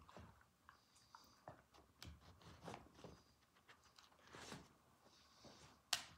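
Near silence: quiet room tone with faint scattered rustles and soft taps, and one sharp click near the end.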